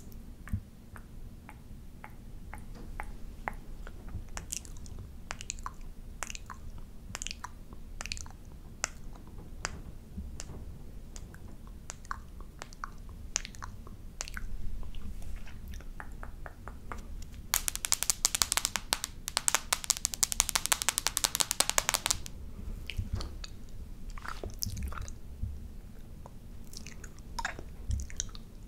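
Close-miked wet mouth sounds from licking: scattered tongue and lip clicks and smacks. About two-thirds of the way in comes a dense run of rapid crisp clicks lasting about four seconds.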